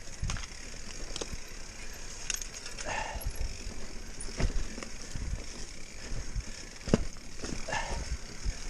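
Mountain bike rattling over a rough, rocky downhill trail: irregular sharp knocks and clanks over a steady hiss.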